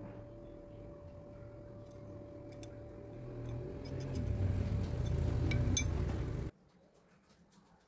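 Steady hum under a low rumble that grows louder, with a light metallic clink near the end as the machined steel parts are handled; everything cuts off abruptly about six and a half seconds in.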